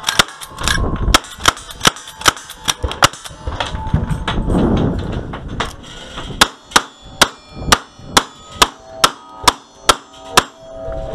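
Rapid lever-action rifle fire for about three seconds, then handling noise, then a fast string of about ten single-action revolver shots. The steel buffalo targets clang and ring as they are hit, and the run is a clean one with no misses.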